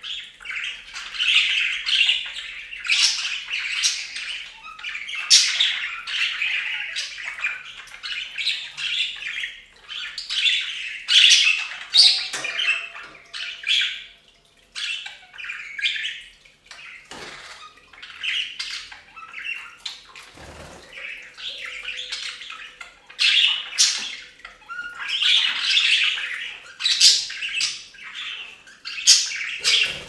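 Budgerigars chattering, a busy mix of warbling and sharp squawking calls. The chatter thins out for several seconds midway, then picks up again.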